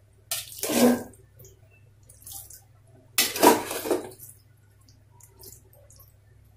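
Metal spoon scooping soft khichuri from an aluminium pot and dropping it into a serving bowl: two short scraping, splatting sounds about three seconds apart.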